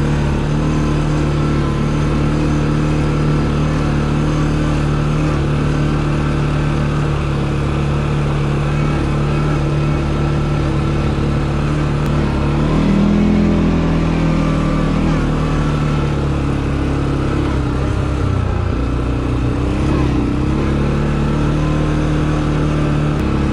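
CFMoto 450L ATV engine running steadily while riding. Its pitch rises briefly about 13 seconds in as the throttle opens, then settles again.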